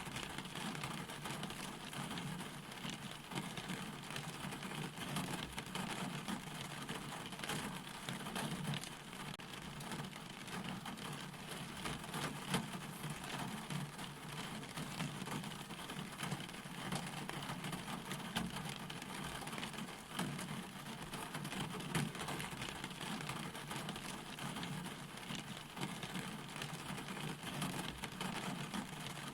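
Steady rain falling, a continuous hiss dense with the small ticks of individual drops striking a surface, over a low even rumble.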